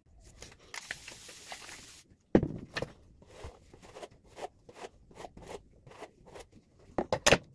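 Hairbrush strokes through long hair: a quick run of short, scratchy swishes, about three a second, with a sharp knock about two seconds in.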